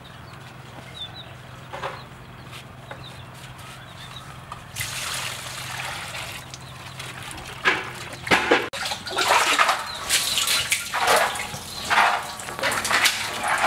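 Water pouring out of a plastic bucket, then, from about halfway through, loud irregular splashing as a rope-hung bucket is dropped into the water at the bottom of a well and filled.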